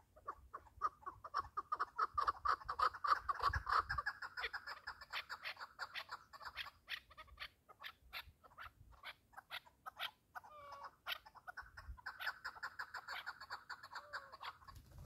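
Partridge calling: long runs of quick chuck notes, several a second, loudest in the first few seconds and again near the end, with a few sliding notes in between.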